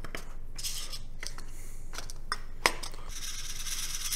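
Small 3D-printed plastic trays clicking and tapping against each other as they are stacked and set down on a wooden tabletop: a few separate sharp clicks, the loudest about two-thirds of the way through.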